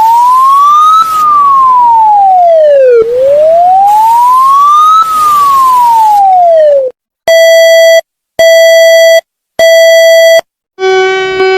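Electronic emergency alert siren tone wailing up and down twice, each rise and fall taking about four seconds. It cuts off and is followed by three evenly spaced buzzy beeps, then a harsh steady multi-tone alert tone near the end.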